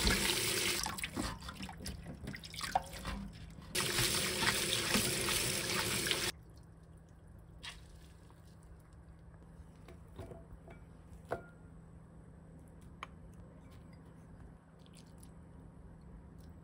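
Tap water running into a stainless steel colander in a sink while hands swish and rub strips of bellflower root in it; the water sound eases for a few seconds, comes back, and cuts off suddenly about six seconds in. After that, only a few faint drips and small wet clicks as the rinsed roots are squeezed by hand.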